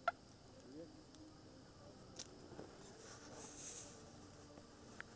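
Faint handling noises of hands unhooking a small crucian carp: a sharp click just after the start, then a few soft clicks and a brief rustle. Behind them runs a faint, steady high chirring of night insects.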